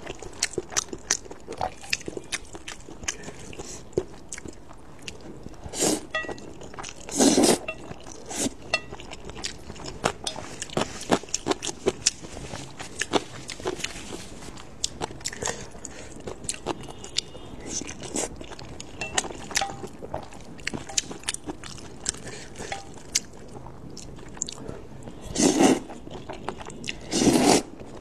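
Close-miked chewing of saucy mixed noodles and dumplings, with constant wet mouth clicks. A few louder slurps of noodles stand out, one about a quarter of the way in and two near the end.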